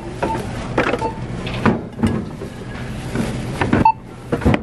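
Shopping being handled at a checkout counter: a plastic bag rustling and jars and bottles knocking on the steel counter as they are picked up and set down. A few short barcode-scanner beeps sound through it.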